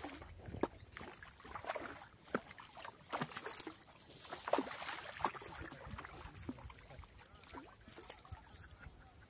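Hooked carp thrashing and splashing at the surface close to the bank as it is played toward a landing net: a run of irregular splashes, loudest around three to five seconds in.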